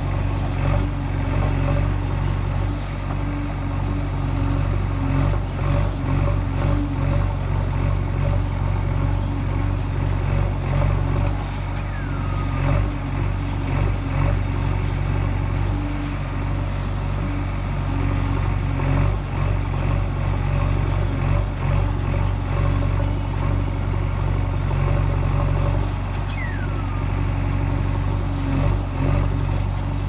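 JCB 3DX Eco backhoe loader's diesel engine running steadily while the backhoe digs, its level rising and dipping a little as the hydraulics take load. A short falling tone sounds about twelve seconds in and again near the end.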